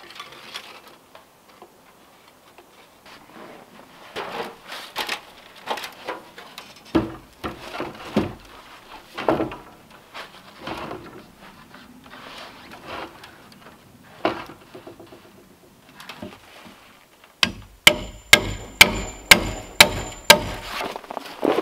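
Irregular knocks and scrapes of wood being handled. About seventeen seconds in, a hammer drives a nail into board framing: about nine sharp blows, roughly three a second, each with a metallic ring.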